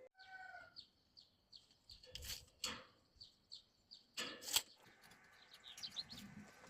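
Small birds chirping in short repeated calls, with a few sharp knocks at about two and four seconds in, the loudest near the middle.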